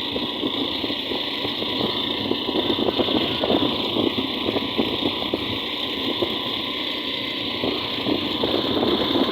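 A vehicle engine running steadily, with rough road-travel noise.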